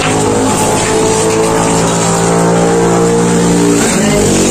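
An engine running steadily, with a shift in its pitch about four seconds in.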